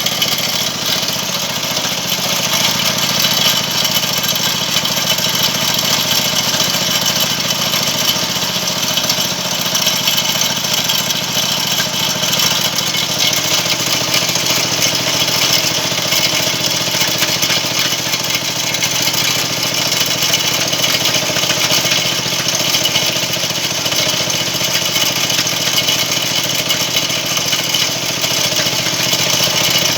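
A motor runs steadily at constant speed, driving a winch that spools steel wire rope onto its drum.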